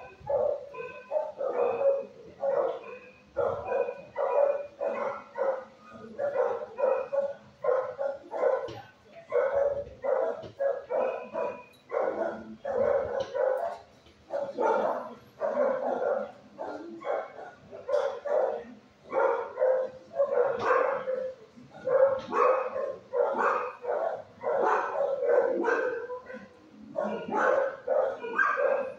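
A dog barking over and over, several short barks a second in runs with only brief pauses, some of them higher yips. It is the vocal barking of a shelter dog whose treats are being withheld.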